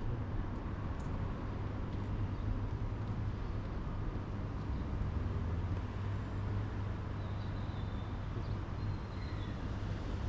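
Steady city street traffic: a continuous low rumble of car engines and tyres.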